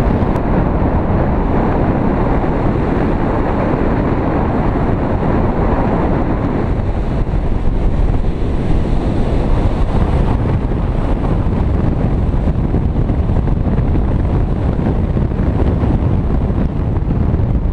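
Airflow from a fast speedflying glide buffeting a GoPro's microphone: a loud, steady low rush of wind noise.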